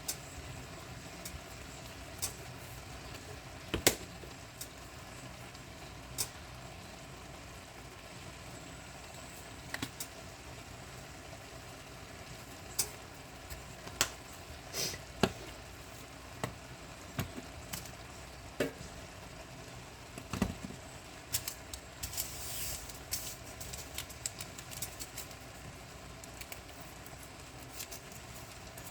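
Kitchen utensils clinking and knocking now and then over a steady low hum, with a short hiss a little past the two-thirds mark.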